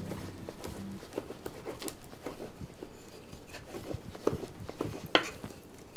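Irregular light knocks and taps on a wooden board as dumpling dough is cut into pieces with a knife and rolled out with a rolling pin. A music bed fades out about a second in.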